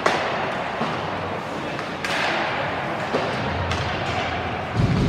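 Ice hockey play echoing in an arena rink: a few sharp clacks of sticks and puck over the steady hiss of skates on the ice. A louder low rumble comes in near the end.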